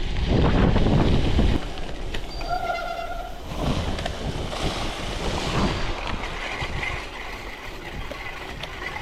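Wind buffeting the chest-mounted camera's microphone and tyre rumble from a gravel bike riding over gravel; the rumble is loudest for the first second and a half, then eases. A brief high squeal with several stacked tones sounds about two and a half seconds in.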